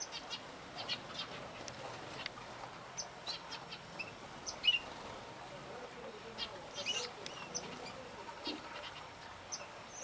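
A mixed aviary flock of small finches chirping: short, high calls scattered irregularly, the loudest about four and a half seconds in.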